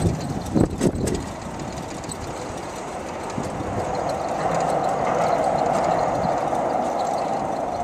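A rail vehicle passing: a steady running noise that swells about halfway in and holds. A few loud knocks come in the first second.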